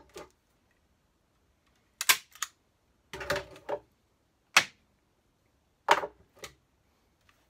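Stapling grill cloth onto a speaker cabinet's baffle board: a handful of sharp clacks, some doubled, spaced about a second apart with quiet between.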